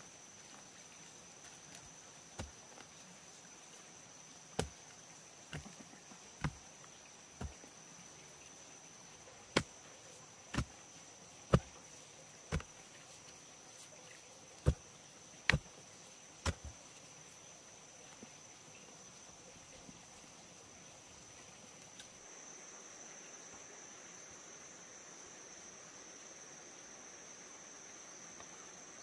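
A wooden pole jabbed down into hard earth to dig a post hole: about a dozen sharp thuds, roughly one a second, which stop a little past halfway. A steady high insect buzz runs underneath.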